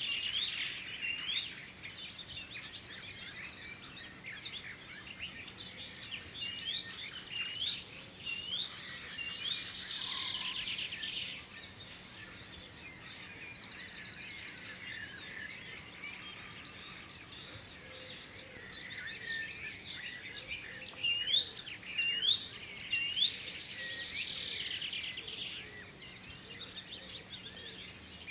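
Dawn chorus of songbirds. One bird sings runs of four or five quick repeated hooked whistled notes three times: at the start, about six seconds in, and about twenty-one seconds in. Fast rattling trills and other softer song fill the gaps.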